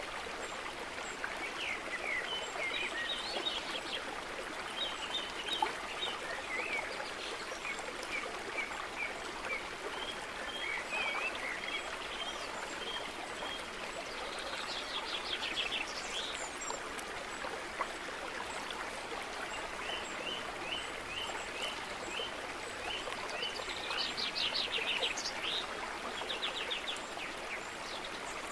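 Running water with birds chirping over it. There are rapid trills about halfway through and again near the end.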